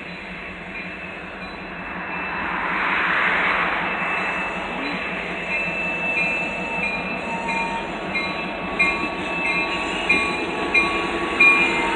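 Diesel freight locomotive approaching and rolling past, its engine and wheels growing louder over the first few seconds. From about five seconds in, its bell rings steadily, about one and a half strikes a second.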